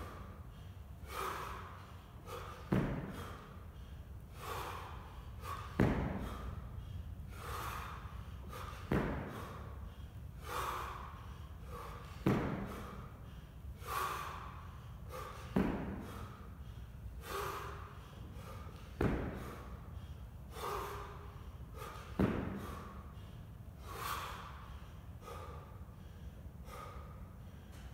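Heavy, rhythmic breathing of a man lifting a 24 kg kettlebell overhead in repeated jerks: quick forceful breaths between reps, with a sharp thud about every three seconds, one per rep.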